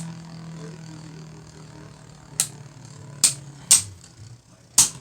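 Two plastic-and-metal Beyblade Burst spinning tops whirring steadily in a stadium. From about halfway in they strike each other four times with sharp, loud clacks described as really hard hits.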